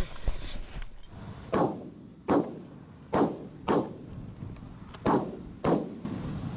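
A volley of about six shotgun shots from several hunters firing at geese, spaced unevenly half a second to a second and a half apart, each a sharp blast with a short echoing tail.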